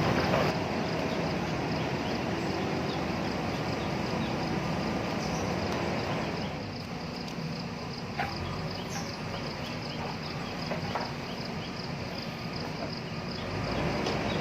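JCB backhoe loader's diesel engine running steadily under work, dipping a little about halfway and picking up again near the end, with a few short sharp knocks.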